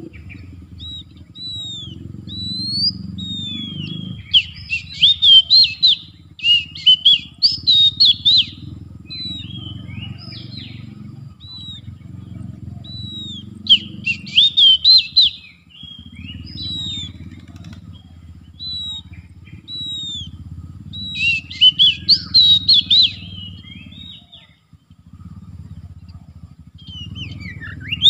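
Oriental magpie-robin singing: short whistled notes that rise and fall, broken three times by loud runs of rapid chattering phrases. A steady low rumble runs underneath.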